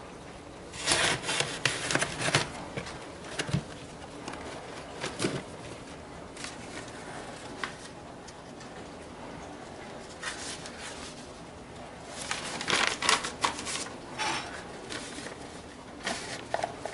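Paper cone coffee filters and their cardboard box being handled: crisp rustling and crinkling in two bouts, near the start and again past the middle, with quieter paper handling between.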